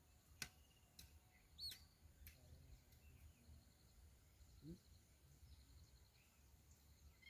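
Near silence with faint, high bird chirps and soft trills, and two sharp clicks in the first second or so.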